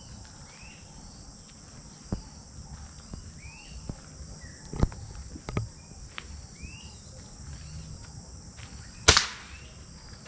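A single air rifle shot, one sharp crack about nine seconds in, preceded by a few lighter knocks. Throughout there is a steady high insect buzz and a few short bird chirps.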